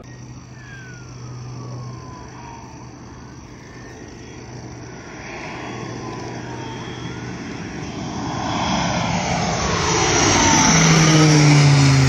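Single-engine propeller firefighting plane flying in low and passing overhead. Its engine and propeller drone grows steadily louder, then drops in pitch near the end as it goes by.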